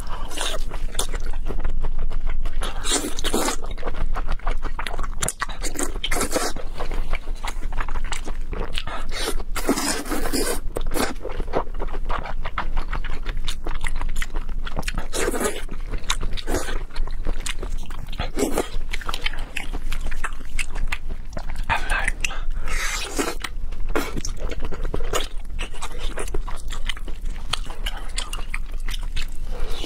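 Close-miked wet chewing and slurping of raw salmon slices in a spicy marinade, with louder slurps and bites every few seconds.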